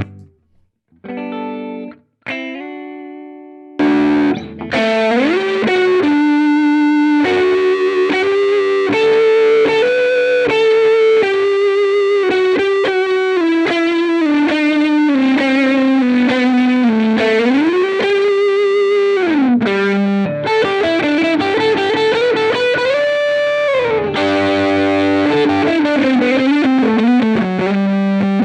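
Electric guitar played through the Ground Control Serpens optical boost/compressor pedal with a distorted tone. A couple of brief notes are followed, from about four seconds in, by a continuous lead line of long, sustained notes with string bends.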